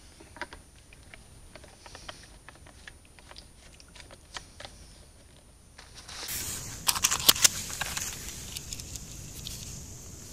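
Faint scattered ticks and rustles, then about six seconds in the sound grows louder, with a quick run of sharp clicks and rattles and a few more after: an air pistol magazine and a tin of pellets being handled while the magazine is loaded.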